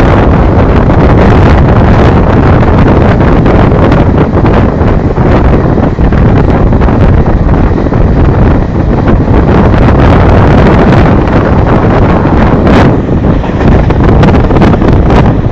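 Heavy wind buffeting the microphone over the steady rumble of a passenger train running at speed, recorded from aboard, with frequent short knocks through it.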